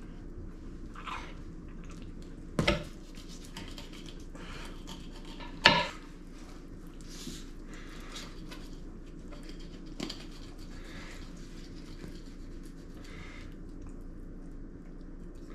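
A knife cutting and scraping at a whole tautog on a wooden cutting board, with faint rasping strokes and two sharp knocks about three seconds apart, the second louder, over a steady low room hum.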